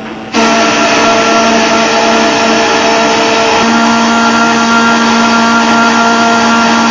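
A small electric motor switches on abruptly about half a second in and runs loud and steady at a constant pitch.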